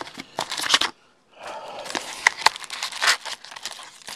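A cardboard trading-card hobby box being opened and handled: cardboard and paper rustling and scraping in quick irregular clicks, with a brief pause about a second in.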